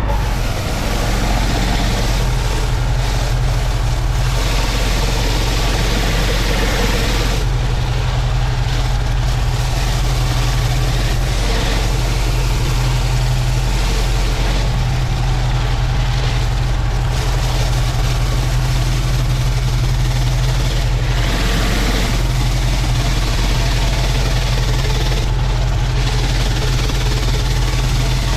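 Pressure washer engine running steadily while the flat surface cleaner sprays a tarmac driveway, a rushing water hiss that rises and falls over a constant hum.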